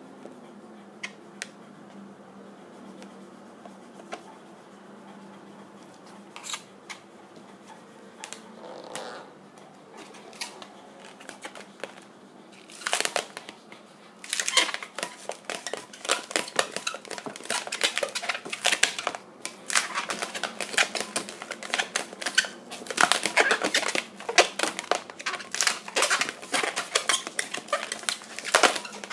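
Latex modelling balloon squeaking and rubbing as it is handled and twisted into bubbles: a few faint clicks at first, then from about 13 seconds in a dense run of sharp squeaks.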